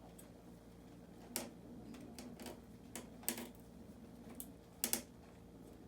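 A scattered series of sharp clicks or pops, about seven in all at irregular spacing, with two coming close together near the end, over a faint steady hum.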